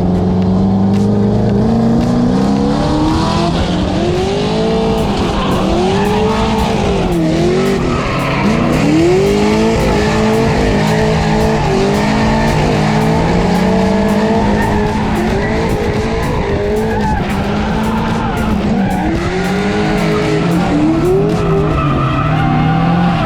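Drift cars in a tandem battle, a Mazda Miata against a C6 Corvette, engines revving up and down again and again as the drivers work the throttle, over the continuous hiss and squeal of sliding tyres.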